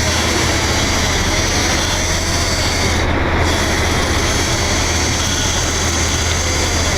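Sportfishing boat's engine running steadily while trolling: a constant low drone under an even rushing noise.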